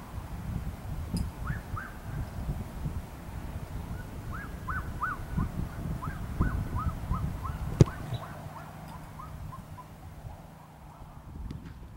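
A football kicked once, a single sharp thud about eight seconds in, over wind buffeting the microphone. A bird calls a long run of quick repeated notes meanwhile.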